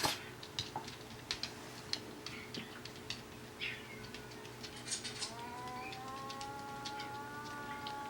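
Small pet dog howling: a long, steady-pitched howl that starts about five seconds in, with light clicking and patter before it.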